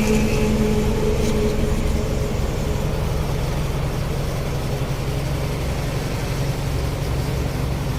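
Excavator's diesel engine idling steadily just after start-up, a low, even throbbing.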